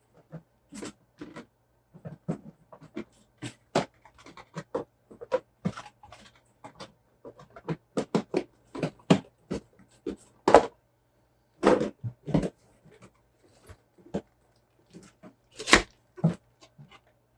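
RC car kit parts and their packaging being handled and sorted: irregular clicks, taps and rustles, some sharper than others, over a faint steady hum.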